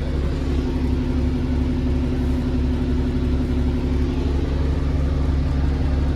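Engine of National Express Coventry bus 4881 running at a steady speed, a deep even drone with no rise or fall in pitch.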